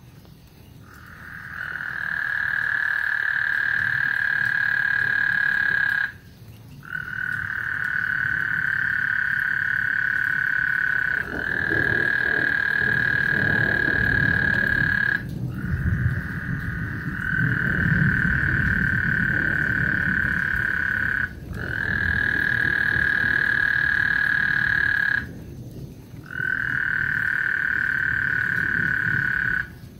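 Frogs trilling: about six long, steady, high trills follow one another, each lasting four to six seconds with brief breaks between, and a low rumble underneath in the middle.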